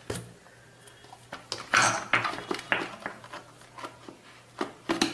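A mixer grinder's steel jar being handled and taken off the motor base, giving scattered clicks and knocks with a short scraping sound about two seconds in.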